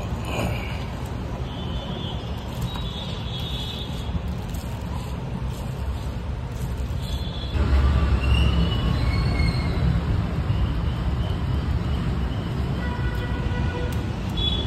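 Road traffic noise: a steady low rumble that grows louder about halfway through as a heavy vehicle goes by, with several short high-pitched tones over it.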